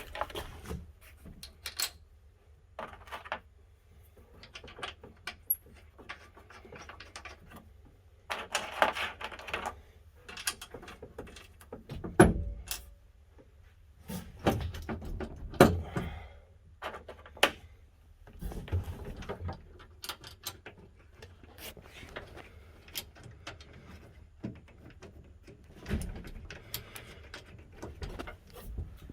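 Irregular clicks, clinks and knocks of small metal hardware and hand tools as old rusted washers are taken off and black anodized spiked nuts and washers are fitted, with brief scraping between them. The loudest knocks come about twelve and sixteen seconds in, over a steady low hum.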